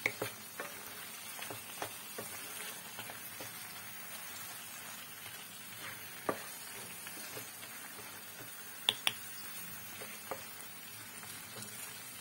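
Thick masala with giant freshwater prawns sizzling gently in a nonstick kadai while a spatula stirs it, with scattered scrapes and taps of the spatula against the pan; the sharpest taps come about six seconds in and twice in quick succession about nine seconds in.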